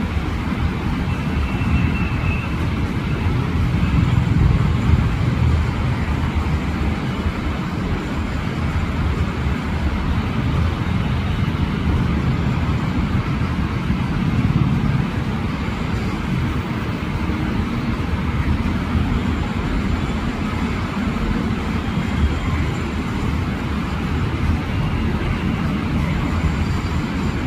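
Steady low rumble of road traffic noise.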